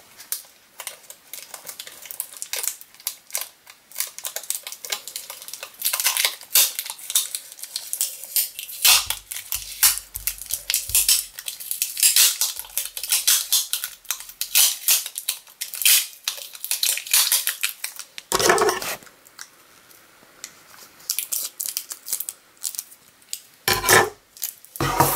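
Brown packing tape being pulled off its roll and wound around a small cardboard firework tube: a rapid, uneven crackling rip of tape unpeeling, with a few louder knocks of the roll and tube being handled in the last third.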